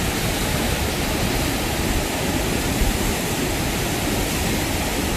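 Steady rush of fast-flowing river water close by a waterfall, an even hiss with no break or change.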